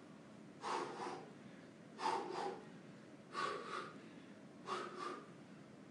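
A boxer's sharp exhalations in time with his punches while shadowboxing hooks: four short bursts of hard breathing, each a quick double huff, about every second and a half.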